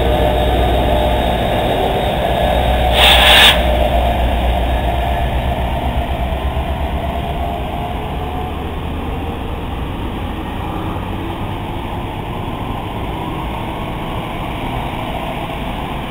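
NJ Transit passenger train passing at speed. The low diesel rumble of its two PL42AC locomotives fades after the first several seconds into the steady rolling noise of the Multilevel coaches, with a short hiss about three seconds in.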